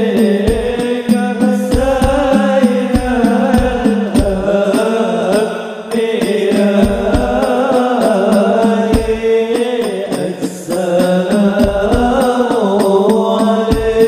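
Al-banjari ensemble performing a sholawat: male voices singing long, ornamented Arabic devotional lines through microphones over a steady held tone, with frame drums and deep bass drum strokes.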